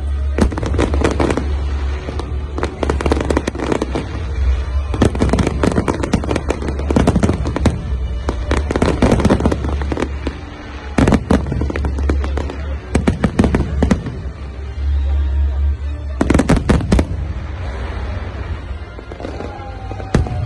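Fireworks display: aerial shells bursting in rapid volleys of bangs and crackles, separated by brief pauses, with a longer lull about three quarters of the way through before a last burst near the end.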